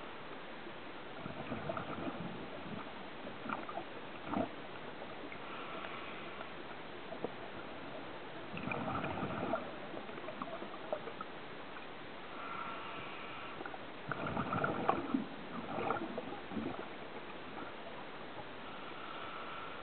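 Scuba diver breathing through a regulator underwater: a short hissing inhale about every six or seven seconds, each followed by a longer bubbling rumble of exhaled air. A few sharp clicks are mixed in.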